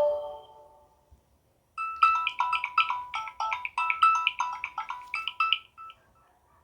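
Samsung One UI 4.1 phone ringtone: a quick melody of short, high notes at about five a second, lasting about four seconds. It follows the fading end of the previous ringtone and a brief gap.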